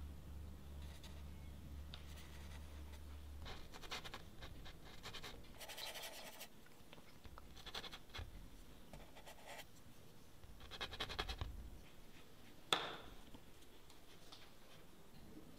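Scratchy strokes of a paintbrush on canvas, in short separate passes, with one sharp tap near the end.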